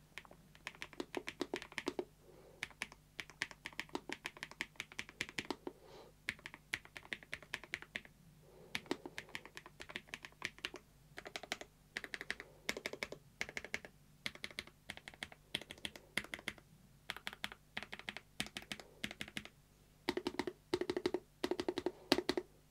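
Typing on a Lofree Flow low-profile mechanical keyboard with self-lubricating switches: fast runs of keystrokes with a dampened, thunky sound, broken by a few short pauses.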